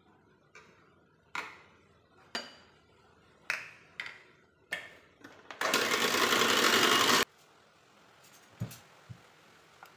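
A spatula knocking against a glass mixing bowl and the mixer beaters, about seven sharp knocks. Then an electric hand mixer runs for about a second and a half and cuts off suddenly. Two soft thumps follow near the end.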